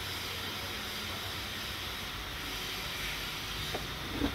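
Steady background hiss, with a couple of brief soft knocks near the end.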